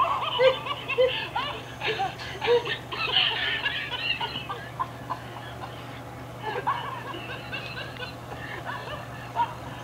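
Soft laughter and chuckling from people in the room, in short scattered bursts, busiest in the first few seconds.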